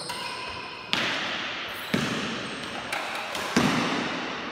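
Badminton rackets striking a shuttlecock during a doubles rally: four sharp hits about a second apart, each echoing around a large hall.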